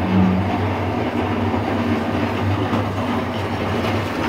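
Steady low rumble of street traffic, like a heavy vehicle's engine running, with a short low tone right at the start.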